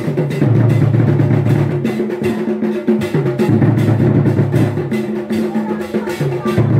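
Music with a steady drum beat over a low bass line.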